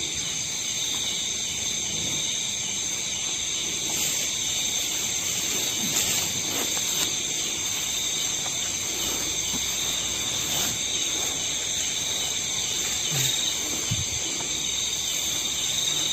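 Steady night chorus of crickets and other insects, a constant high-pitched shrilling, with only faint low sounds beneath it.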